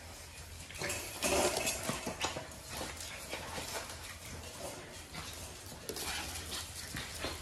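French bulldog puppies play-fighting: claws clicking and scrabbling on a tile floor, with scuffling and brief puppy growls, loudest about a second in.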